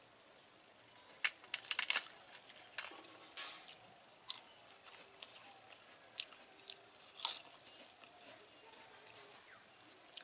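Crisp crunching and crackling of fried papad, with a quick run of crackles about a second in and then single crunches every second or so.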